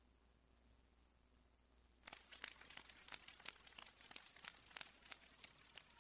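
Faint, scattered hand clapping from a few people, starting about two seconds in as irregular sharp claps several times a second.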